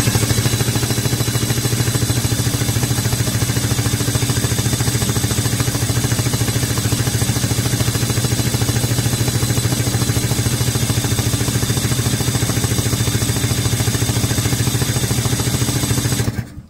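Ski-Doo Mach 1 snowmobile's two-stroke engine cranked over steadily by its starter for about sixteen seconds without firing, then stopping abruptly near the end. The cranking drives the fuel pumps, which are pumping fuel into the jar, so the pumps are working.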